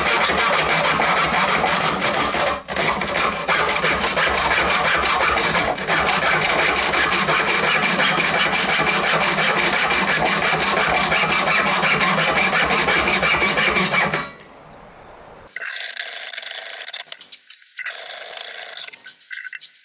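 A hand hacksaw with a standard bimetal blade sawing back and forth through a Litelok's fabric-covered strap lock clamped in a bench vise, as part of an attack test. The sawing is steady and loud. About fourteen seconds in it drops away briefly, then returns thinner and broken by short pauses.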